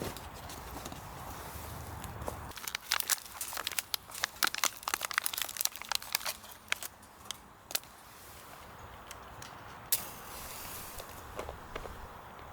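Crinkling, crackling handling noise: a dense run of sharp crackles and clicks from about two and a half to eight seconds in, with one more click near ten seconds, over a steady faint hiss.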